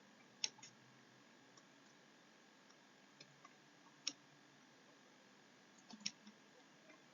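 Near silence with a few faint, sharp clicks: one about half a second in, one about four seconds in and one about six seconds in.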